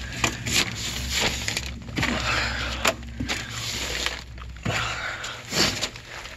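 A person crawling through a dirt crawlspace: irregular scuffing and rustling of knees, hands and clothing, with a few sharp knocks, over a low steady hum that stops about five seconds in.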